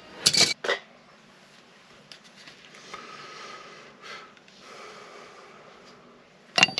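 Handling noise as an old cast-repaired pipe section is worked out of a wall opening: two sharp knocks about half a second in, then soft rustling and breath sounds, and a sharp metallic clink with a short ring near the end.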